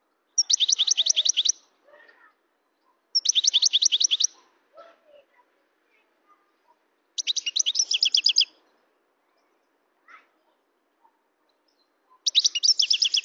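European goldfinch singing: four short phrases of rapid, evenly repeated high notes, each about a second long and a few seconds apart, with faint soft notes in between.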